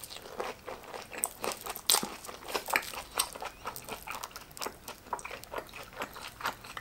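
Crunching and chewing of a crispy fried breaded pork katsu cutlet: irregular crisp crunches, loudest about two seconds in.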